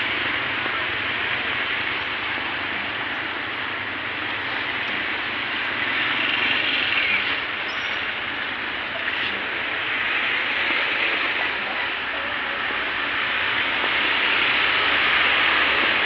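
Steady rushing noise with no clear single source.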